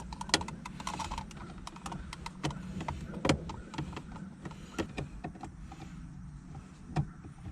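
Irregular clicks, taps and knocks of plastic interior trim and small parts being handled and pried loose while dismantling a car's centre console, over a steady low hum.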